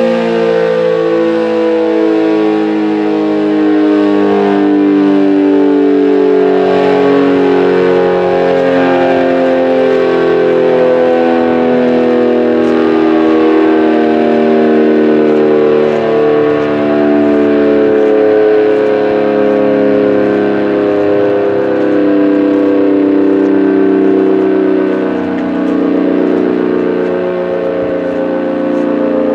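ACA Super Banshee outdoor warning siren sounding its daily noon blast: a loud, steady howl of several stacked tones whose pitch sinks slightly as it goes, with a brief dip in loudness near the end.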